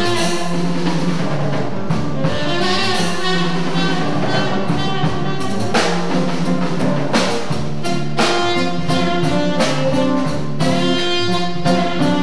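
Live jazz quartet playing: saxophone lead over electric guitar, bass guitar and drum kit. The drums grow busier with more frequent cymbal and snare hits through the second half.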